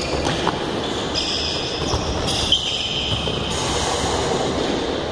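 Futsal being played on a hard indoor court in a large, echoing hall: sneakers squeaking on the floor in long high squeals, and the ball being kicked, with several short sharp thuds.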